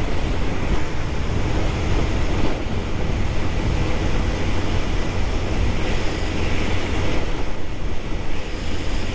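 Motorcycle riding at highway speed: a steady rush of wind on the camera microphone over the low, even drone of the Yamaha Fazer 150's engine and the road.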